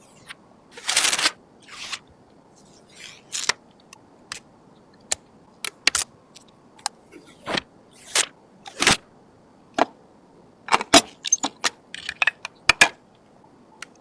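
Computer parts being handled and fitted: an irregular series of sharp clicks and taps of hard plastic and metal, with a few short rustling scrapes.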